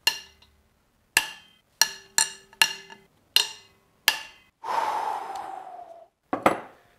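Sharp metallic clicks of a breaker bar and socket on cylinder head bolts, seven ringing clinks over about four seconds. A long breathy groan follows, falling in pitch, then one more click near the end.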